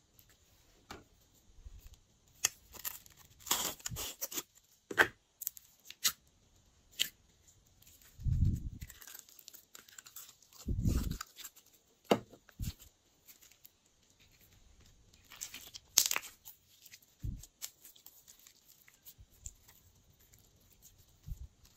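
Clear purple glitter slime being squeezed, folded and stretched by hand: irregular sticky crackles, snaps and peeling sounds, with two deeper, longer squelches near the middle.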